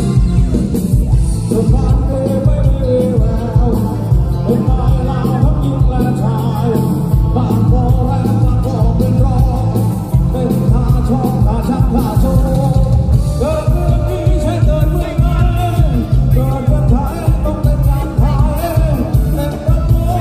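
Live Thai mor lam band playing loudly through a concert PA, with a male singer carrying the melody over a steady beat with strong bass.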